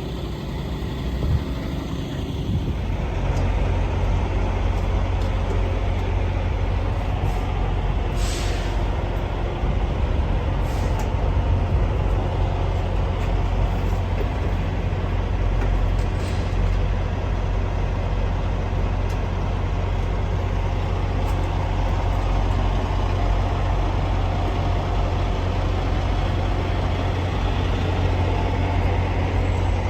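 Heavy truck's diesel engine running with a steady low rumble that builds about three seconds in. A short hiss of air-brake air comes about eight seconds in, with a couple of fainter hisses later.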